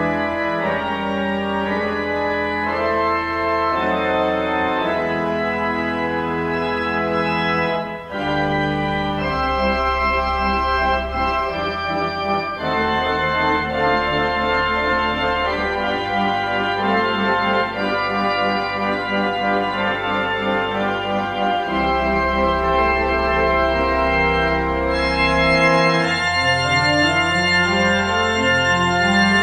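Organ music: sustained chords over long held bass notes, changing every couple of seconds, with a brief break about eight seconds in and a rising run of notes near the end.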